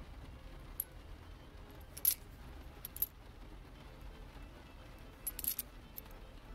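Silver war nickels clinking against each other in a palm as they are pushed about with a fingertip: a few short, sharp clinks spread over several seconds, the loudest about two seconds in and a quick cluster near the end, over a low steady hum.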